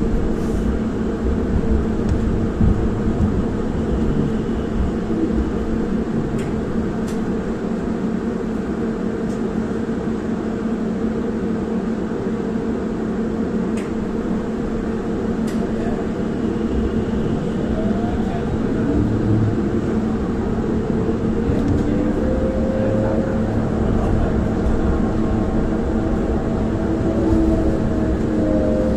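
Cabin noise of an MZK Gorzów line 4 city transit vehicle in motion: a steady running drone. From about two-thirds of the way in, a whine slides up and down in pitch as the vehicle changes speed.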